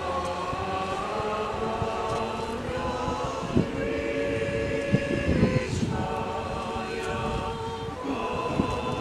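A group of voices singing slowly together, holding long notes that shift every second or two, with a low rumble underneath.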